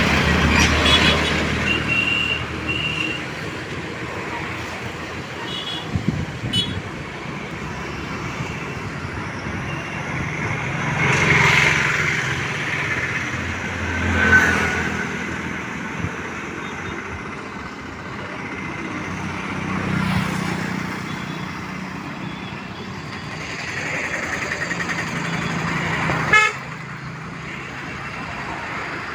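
Road traffic, with vehicles going by one after another in swells over a steady hum. A vehicle horn toots briefly a couple of times about two to three seconds in, and once more about halfway through.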